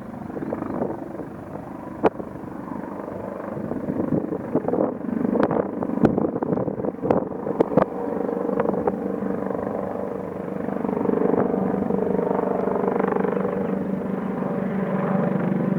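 Airbus H225M Caracal military helicopter's rotors and turbines running and growing louder as it approaches, with a steady pitched drone building in the second half. Several sharp clicks in the first half.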